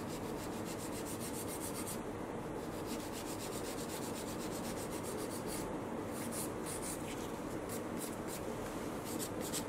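A hand nail file rasping back and forth over a gel nail extension in quick, repeated strokes, filing down the white French tip. The file is a softer, finer one.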